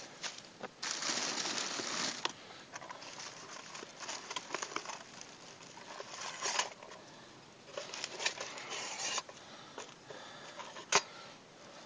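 Irregular rustling in bursts, with scattered small clicks and one sharp click about eleven seconds in.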